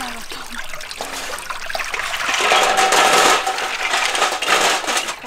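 Snail shells clattering against each other as hands stir and rinse them in a woven bamboo basket over a basin of water, with water splashing and draining. The rush of water is loudest around three seconds in.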